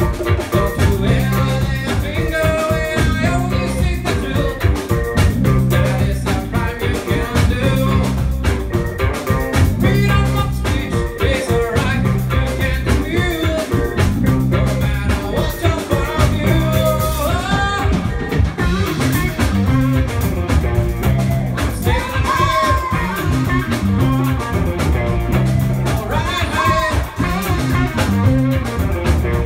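A live roots reggae band playing, with electric guitars and a drum kit over a steady, repeating bass line.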